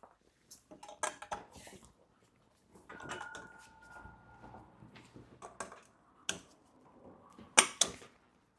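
Scattered light clicks and knocks as fabric hooks are hung one at a time on the bed frame's top bars, with a few sharper clicks near the end.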